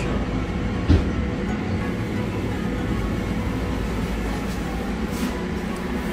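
Steady low mechanical rumble and hum of room machinery, with one short knock about a second in.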